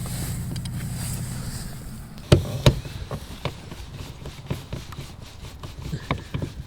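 Phillips screwdriver backing a screw out of a plastic car door trim panel: light scraping and small scattered clicks, with two sharper plastic knocks about two and a half seconds in. A low steady hum is under the first two seconds.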